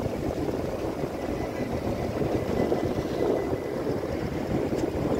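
Steady low engine rumble from the car ferry and the motor scooters idling at its ramp.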